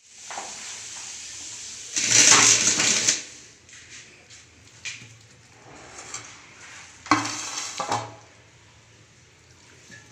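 Raw mutton pieces being handled on a steel tray and laid by hand into a steel cooking pot lined with potato slices, with scraping and clatter of the metal. The loudest noisy rush is about two seconds in and lasts about a second; a shorter one comes about seven seconds in.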